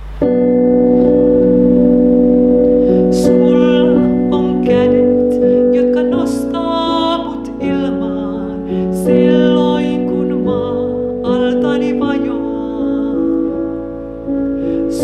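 Woman playing sustained chords on a digital piano, joined by her own singing voice about three seconds in.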